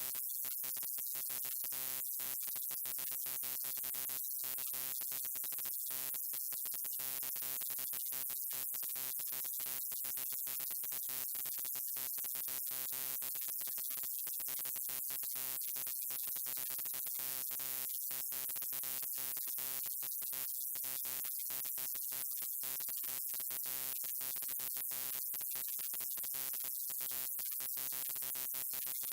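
Neon light's electrical buzz: a steady hum with many evenly spaced overtones and a bright hiss on top, broken by many brief dropouts.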